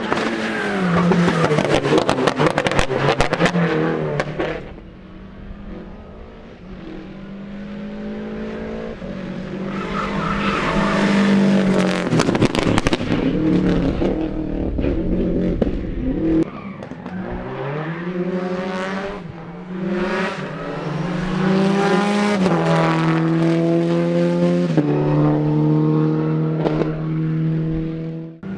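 Rally cars' engines revving hard as several cars pass one after another, the engine note climbing and dropping in steps through gear changes, with rapid crackling from the exhausts on the loudest passes.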